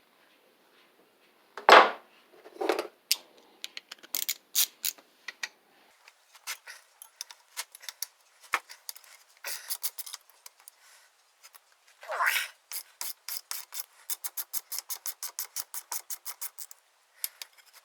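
Hand tools working on a Briggs & Stratton WMB small engine during teardown: a single knock about two seconds in, scattered clicks and scrapes, then a fast, even run of ratcheting clicks for about four seconds near the end.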